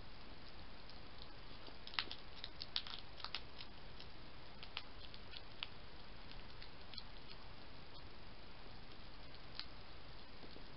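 European hedgehog crunching dry pellet food from a bowl: scattered crisp chewing clicks, most of them in a cluster about two to three and a half seconds in, over a steady hiss.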